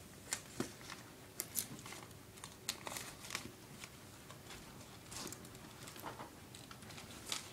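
Folded paper pyramids rustling and crinkling as they are handled and pressed together into a cube, with scattered short, sharp ticks of paper against paper.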